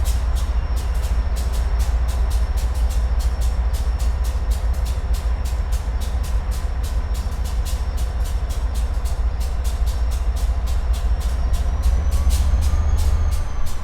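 Locomotive train running, with a heavy low rumble and a fast, even clicking of steel wheels on the track; a faint tone rises and falls again near the end.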